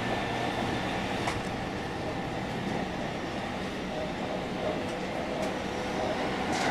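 A JR Central 313 series 1100-subseries electric train running on the line, heard from inside the car: a steady rumble of wheels on rail, with a light click about a second in.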